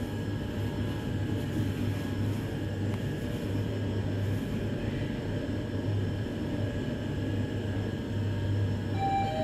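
Mitsubishi Nexiez-MR machine-room traction elevator car travelling upward, a steady low hum and rumble of the ride heard from inside the car. Near the end, as the car arrives, an electronic arrival chime starts, one tone stepping down to a lower one.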